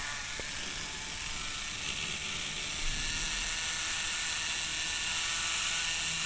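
Small DC motor of an AHM FP45 HO locomotive running at speed on wired-in power while a cleaning tool is held against its spinning commutator, giving a steady high whir with a hiss. The commutator is being cleaned of built-up carbon.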